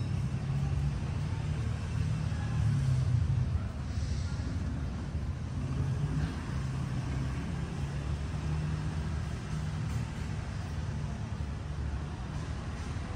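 Low, steady rumble of road traffic and a motor vehicle's engine, swelling slightly about three seconds in.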